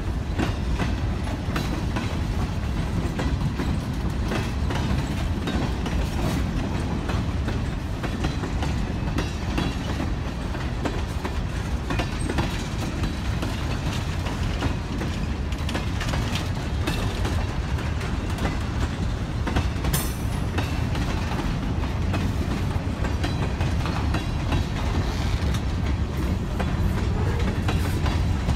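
Freight cars of a passing freight train rolling by at close range: a steady low rumble of steel wheels on rail, with frequent clicks and clacks as the wheels cross rail joints.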